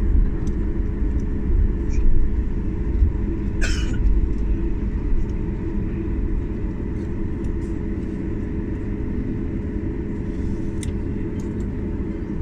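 Steady low rumble heard inside an airliner's cabin as the plane moves on the ground, easing after the first few seconds, with a short hiss a little before halfway and a few faint clicks.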